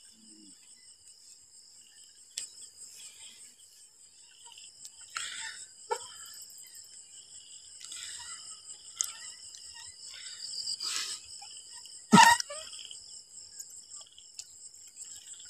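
Night chorus of crickets and other insects: several steady, high-pitched trills layered together, with soft rustling and handling noises and one loud knock about twelve seconds in.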